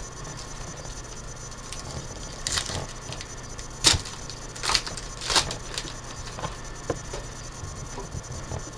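Crinkling of a foil trading-card pack wrapper and cards being slid and sorted by hand, in a few short rustles between about two and a half and five and a half seconds in, with lighter clicks of the cards after. A steady low hum sits underneath.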